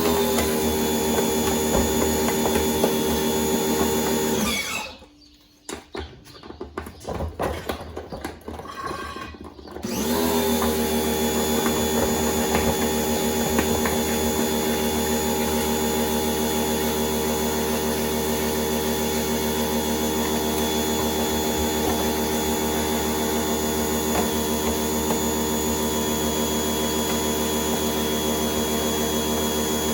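Electric motor running steadily with a whine. It stops about four and a half seconds in, leaving a few seconds of clattering and clicks, then starts again about ten seconds in and keeps running.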